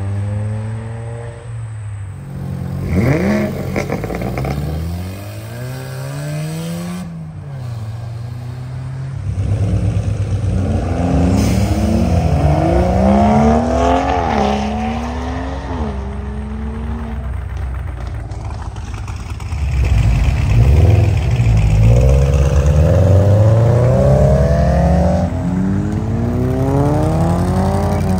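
Engines of modified cars revving and accelerating away one after another, the pitch climbing and dropping back at each gear shift. The louder runs come about three seconds in and from about twenty seconds in.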